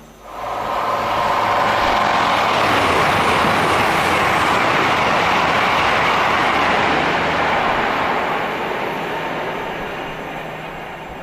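High-speed electric train passing at speed. A loud rushing of wheels and air comes in suddenly, with a whine of several steady tones at first. It holds for about seven seconds, then slowly fades as the train draws away.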